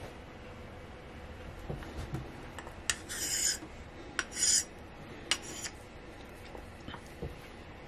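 Straight razor blade drawn across a wet Japanese natural whetstone in three short rasping strokes, with light clicks of the blade on the stone between them.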